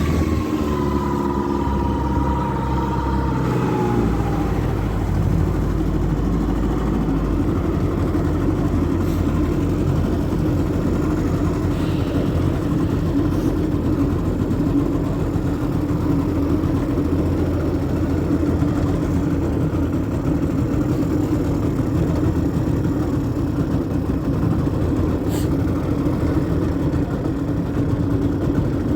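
Two-stroke Vikhr outboard motor running: revs fall over the first few seconds, then it runs steadily. Listening to it, the men hear no alarming noise.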